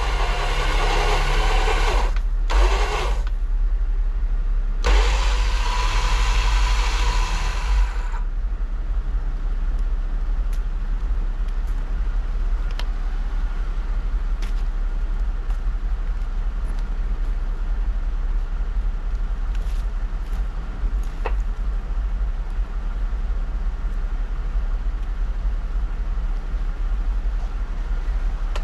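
A Jeep Rubicon's engine running steadily with a deep rumble. Three bursts of loud hissing noise come and go in the first eight seconds, then it settles to an even running sound.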